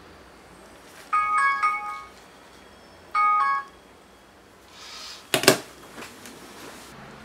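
A bright, bell-like chime jingle: two short phrases of a few quick notes each, like a doorbell or ringtone. They are followed by a brief whoosh and a sharp hit about five seconds in, the loudest sound here, and a hiss that cuts off near the end.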